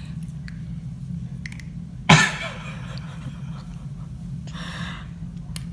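A baby coughing or sputtering: one sharp, loud burst about two seconds in and a fainter one near the end, over a steady low hum.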